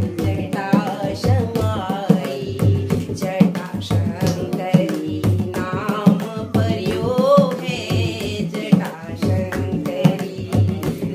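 Women singing a Hindu devotional bhajan (kirtan) together, with a dholak hand drum beaten in a steady rhythm and hands clapping along.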